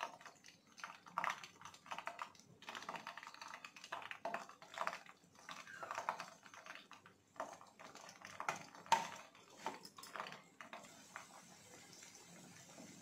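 Chicken lollipops frying in hot oil in a frying pan: irregular crackling and popping as pieces go into the oil, settling into a steadier sizzle near the end.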